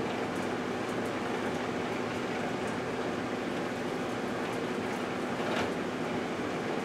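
1978 GE Dual Wave microwave oven running with a steady hum while heating sauce packets. Faint scattered ticks sound over it, one a little louder about five and a half seconds in.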